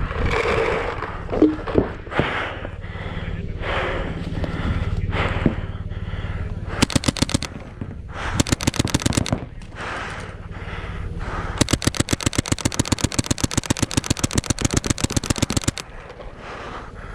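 Paintball gun firing rapid strings of shots: two short strings about seven and eight and a half seconds in, then a long string of about ten shots a second that stops sharply near the end. Before the shooting there is only a steady noisy background with a few scattered clicks.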